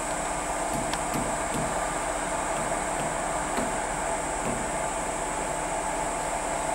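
Steady fan-like whirr and hum of a WAP-7 electric locomotive's cooling blowers as it hauls a passenger train slowly toward the listener, with a few faint ticks about a second in.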